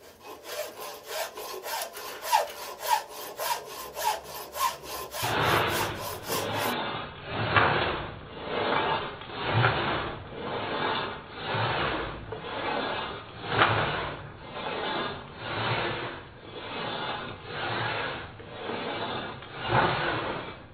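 Hand file rasping across a part clamped in a bench vise, cleaning up the screw support of a compound slide. For the first few seconds the strokes are light and quiet; then come steady, heavier strokes at about one a second.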